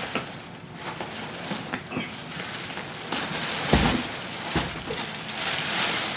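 Packaging being handled during an unboxing: scattered clicks and rustling, with a heavier knock a little over halfway through.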